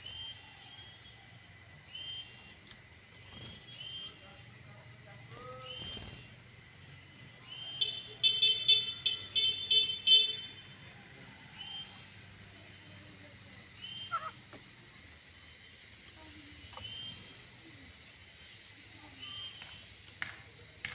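Small birds calling: short high chirps repeated every second or two, with a louder rapid run of notes near the middle.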